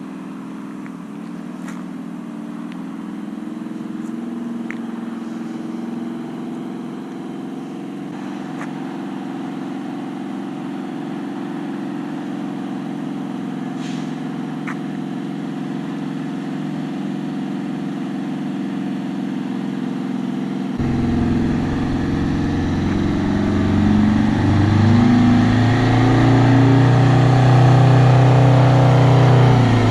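Detroit Diesel 8V92 two-stroke V8 running through a new 5-inch exhaust stack, at a steady idle. About two-thirds through the sound suddenly turns fuller and louder, and the engine revs up, holds, and drops back near the end.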